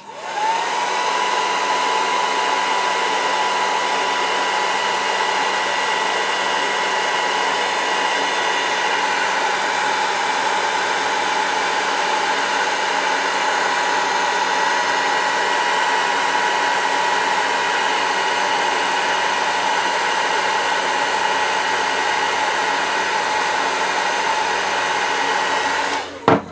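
Electric heat gun switched on, its fan whine rising for a moment and then holding steady over a rush of blowing air as it shrinks heat-shrink tubing. It cuts off near the end.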